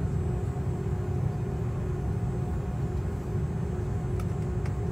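Jet airliner cabin noise heard from a window seat over the wing: a steady low rumble of the engines and airframe as the plane rolls slowly on the ground, with a faint steady hum over it. Two faint clicks come near the end.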